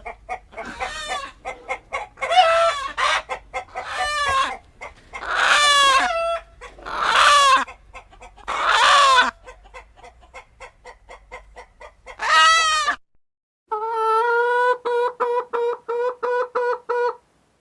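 Chickens clucking, with several loud, drawn-out squawks that bend in pitch. After a short pause, a steady pitched call pulses a few times a second for about three seconds.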